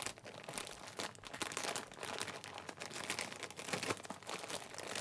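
Clear plastic bag crinkling as hands open it and rummage through the packed contents, an irregular crackle.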